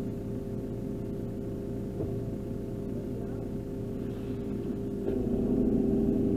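JCB 535 telehandler's diesel engine idling steadily, heard from inside the cab. About five seconds in it revs up and gets louder as the boom is raised.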